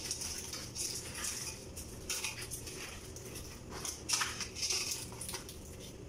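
Cooked crab shells being cracked and picked apart by hand: an irregular string of short cracks and crunches, with clinks of dishes and a steel pot.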